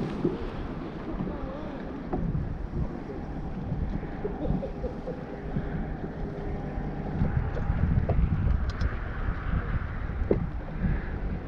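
Wind rumbling on the microphone aboard a small fishing boat, with the faint steady whine of an electric trolling motor holding the boat in position.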